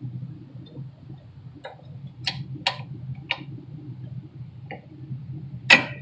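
Sharp metallic clicks of rear brake pads being seated into the caliper bracket, about six separate clicks, the loudest near the end, over a steady low hum.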